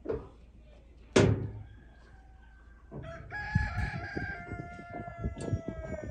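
A sharp knock about a second in, then a rooster crows one long call of about three seconds, its pitch sagging slightly at the end, over light knocking and clicking.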